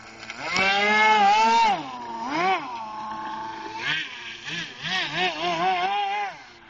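Home-built RC airboat's motor and air propeller running, its pitch rising and falling as the throttle is worked: a long high-pitched burst about half a second in, a short blip, a steadier stretch, then a string of quick throttle blips in the second half before it drops away near the end.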